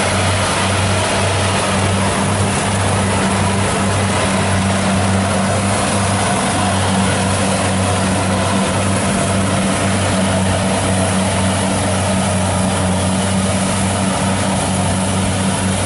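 Rice combine harvester running steadily while cutting, a constant loud machine drone with a low hum.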